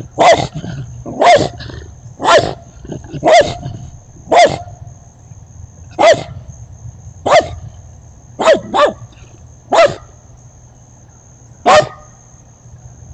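A dog barking in single sharp barks, about one a second at first, then more spaced out, with a quick pair near the middle.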